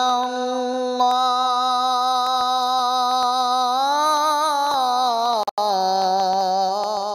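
A male qari's voice in melodic Quran recitation, drawing out the final vowel of 'aḥadā' as one long sung note with ornamental wavering. The note climbs higher about four seconds in, breaks off briefly, then settles on a lower note and trails off at the end.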